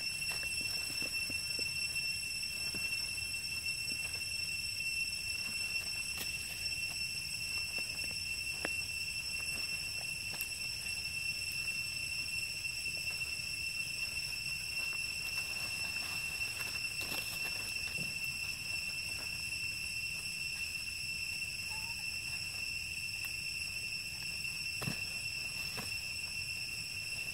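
Steady, unbroken high-pitched insect drone, such as crickets or cicadas, with occasional soft clicks and rustles in dry leaf litter.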